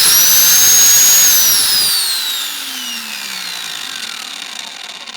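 Electric angle grinder fitted with a chainsaw adapter, no chain on yet, given a brief test spin to check its direction of rotation. It runs with a high whine, is switched off about a second in, and winds down, the whine falling steadily over about four seconds until it stops.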